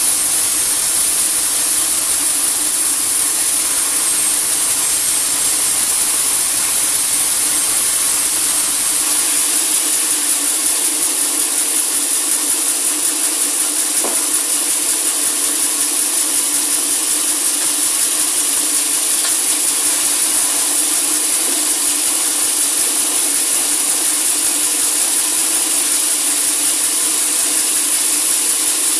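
Sawmill saw cutting through a large teak log: a steady, loud hissing noise. A low rumble drops away about nine seconds in.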